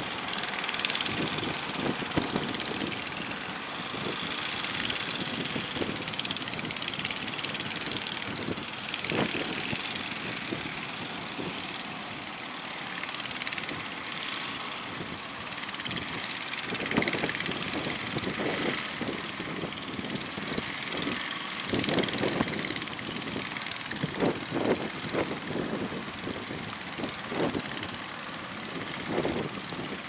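Waves breaking and washing up a beach, a steady rushing noise, with gusts of wind buffeting the microphone in the second half.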